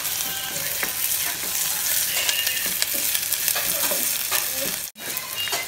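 Chopped onion, garlic and ginger sizzling in hot oil in a clay pot while a wooden spatula stirs them, scraping and tapping against the pot. The sound drops out for an instant about five seconds in.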